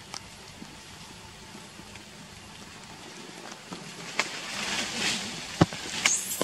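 Faint, even background hiss. About four seconds in, a rustling and crackling of leaves and twigs starts and grows louder, with scattered sharp clicks and one loud snap.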